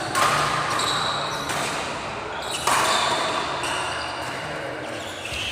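Badminton rackets smacking a shuttlecock during a fast doubles rally: several sharp hits a second or so apart, the strongest at the start and about two-thirds of the way in, each echoing in a large hall.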